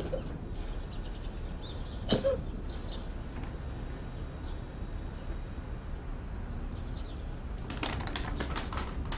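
A person hiccups, once at the start and again about two seconds in, each a short sharp catch. Faint high chirps and a low steady rumble run underneath, and a quick run of clicks comes near the end.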